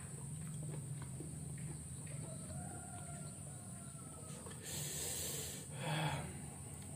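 A rooster crowing faintly in the background, one long drawn-out call. Near the end, two short slurping sucks as the meat of a cooked mangrove clam is sucked from its shell, the second the loudest.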